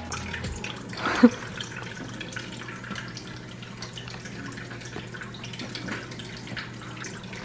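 Water trickling from a kitchen tap into a sink, steady and thin, with faint drips. A short knock about a second in.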